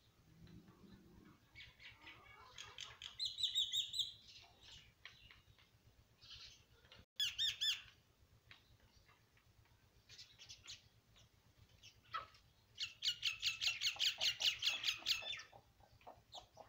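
Hens calling in several bursts of quick, high repeated notes. The longest run, about two and a half seconds, comes near the end.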